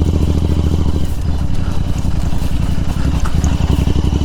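Motorcycle with a loud exhaust running steadily under way, its exhaust a rapid, even stream of low pulses.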